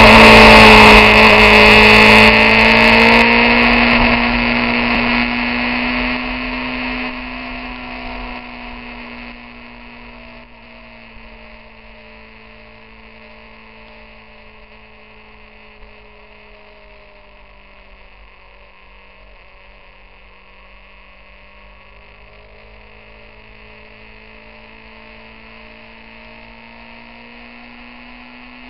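Motorcycle engine running at road speed, heard through a bike-mounted camera: a steady hum whose pitch drifts slowly up and down with speed. It is loud at first and fades down over the first ten seconds, then stays low.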